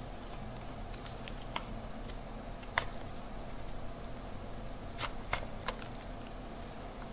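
Sharp, scattered clicks of a 4th-generation iPod's case being pried apart with an opening tool, the clips between the plastic front and metal back snapping loose, with the loudest click about three seconds in and a quick group of three near the end, over a steady low hum.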